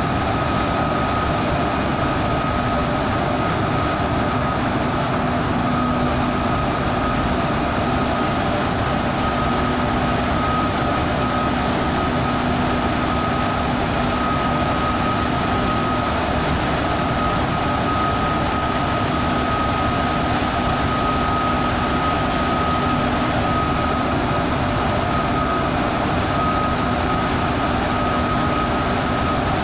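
Steady cabin noise of a bus cruising through a road tunnel: engine and tyre rumble, with a steady high whine running through it.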